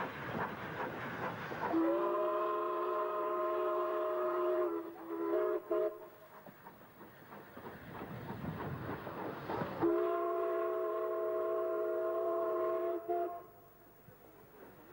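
Steam locomotive whistle giving two long blasts, each sounding several notes at once like a chord, with a short toot between them. The train's running noise fills the gaps.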